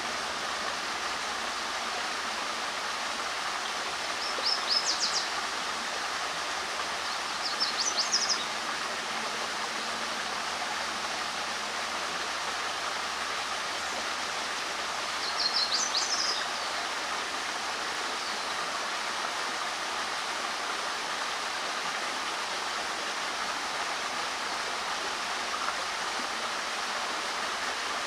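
Steady rush of stream water running, with three short bursts of quick, high bird chirps: about four seconds in, again near eight seconds, and once more around fifteen seconds.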